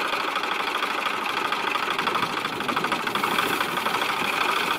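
Diesel engine of a CHAMP YTO454 farm tractor running steadily with a fast, even firing beat.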